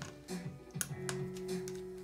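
Instrumental background music with held notes, over which come a few sharp, small clicks from a precision screwdriver working screws in the laptop's internals.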